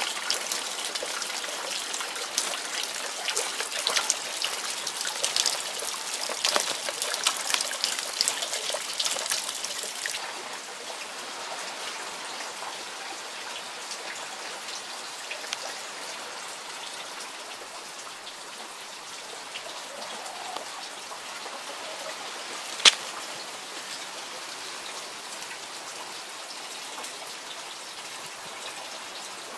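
Rainwater pouring from a black drainpipe and splashing onto grass, a dense crackling splash. About a third of the way in it gives way to a quieter, steady hiss of rain falling, with one sharp click about two-thirds of the way through.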